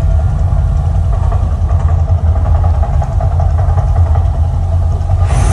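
Volcano show's deep, steady rumble effect playing between fire bursts. A hissing rush joins near the end.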